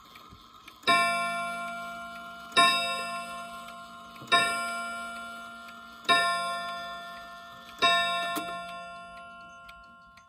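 Commodore 31-day wall clock's movement striking five times, about 1.7 seconds apart. Each stroke rings out and dies away before the next, over the faint tick of the escapement.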